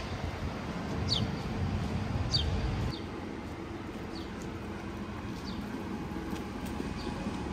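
A songbird repeating a short, high call that falls in pitch, about once a second and fainter toward the end, over a steady low rumble of street traffic and wind.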